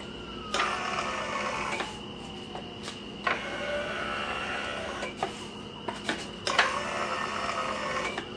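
Bead roller's 12-volt electric motor and chain drive running in three short bursts under foot-pedal control. Each run starts and stops with a click, and the motor's whine rises and falls in pitch.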